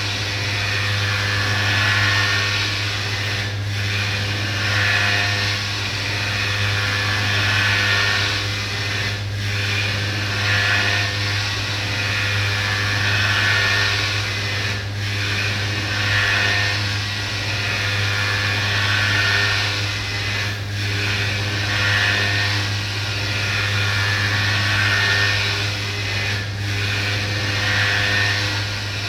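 CNC orthopedic milling machine cutting a prosthetic: a steady motor hum under a hissing cutting noise that swells and eases in a cycle, with a brief dip about every five to six seconds as the tool passes repeat.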